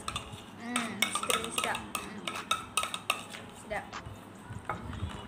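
Spoons scraping and clicking against plastic plates while dessert is scooped and eaten, a quick irregular run of sharp clicks.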